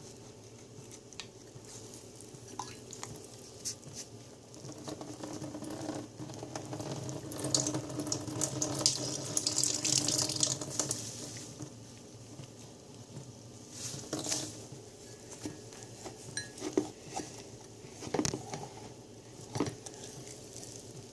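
Slime being squished and stretched by hand: wet squelching with small popping clicks, loudest for a few seconds in the middle, with a few sharper pops later.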